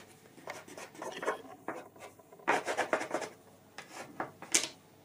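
A blade cutting through a date-filled semolina dough log and scraping on the tabletop in several short strokes, the sharpest near the end.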